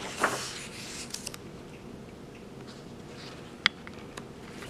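Paper page of a picture book being turned by hand: a short swish at the start, then faint paper rustling and handling with a small sharp click about three and a half seconds in.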